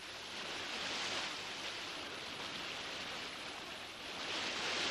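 Sea-wave sound effect: a soft, even wash of surf that swells about a second in and again near the end.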